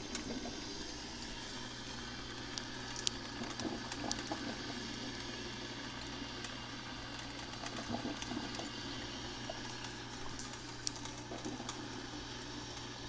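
Black & Decker thermal carafe drip coffee maker brewing: a steady hiss under a low hum, with scattered small ticks and pops of heating water.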